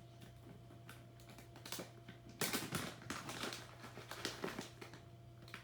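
A hamster eating, making small rapid clicks and crackles that come thickest for about a second, around two and a half seconds in, over a faint steady hum.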